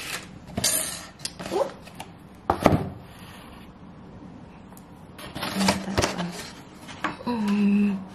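Takeaway dinner packaging being handled and opened: rustling with scattered clicks and knocks, the loudest knock about two and a half seconds in. A woman's short hums come twice in the second half.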